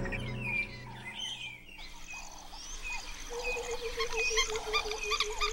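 Many birds chirping, their short, quick calls overlapping. From about three seconds in, a lower call that wavers rapidly up and down joins them.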